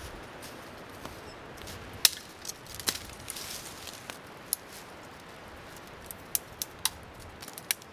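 Scattered sharp clicks and snaps, about seven at irregular intervals, from tinder and small kindling being handled and broken, the loudest about two seconds in, over a faint steady hiss.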